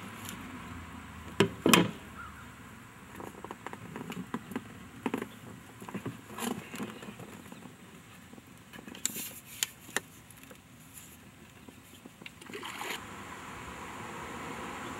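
Knocks and bumps against a small steel-skinned coracle as it is boarded and paddled, with light splashing; the loudest is a pair of sharp knocks just under two seconds in. A steady hiss comes in near the end.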